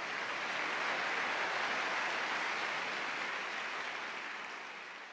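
Large stadium crowd applauding on an old, worn recording, a steady wash of clapping that fades away near the end.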